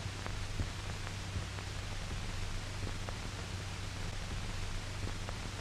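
Steady hiss and low hum of an old 1940s optical film soundtrack, with a few faint, scattered clicks.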